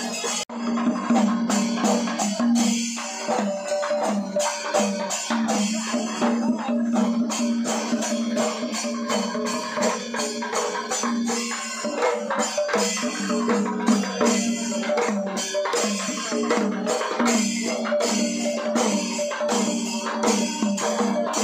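Music with fast jingling and tapping percussion over a steady held low note, with a brief break about half a second in.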